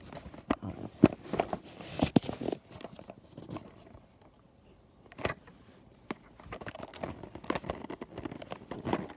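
A box and its packaging being opened by hand: crinkling and rustling with sharp clicks and knocks, strongest about one, two and five seconds in.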